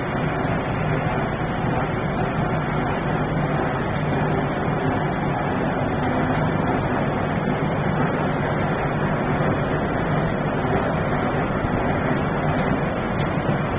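Rotary drum sawdust dryer line running: a steady, loud mechanical noise with a low hum underneath, unchanging throughout.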